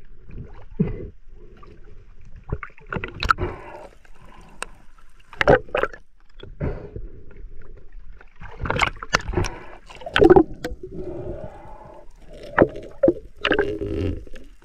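Uneven splashing and gurgling of water as a swimmer strokes along the surface to a float and takes hold of its line, with the camera at the waterline.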